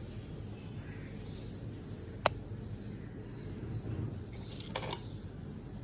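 Quiet handling and scraping noises of ingredients being mixed together in a bowl, with one sharp click a little over two seconds in.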